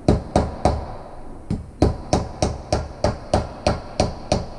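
Small hammer tapping a new rod wiper into the gland of a Case 590 Super L bucket tilt cylinder, gentle sharp taps about four a second, working around the wiper's edge to seat it. There is a short pause about a second in, then the tapping resumes.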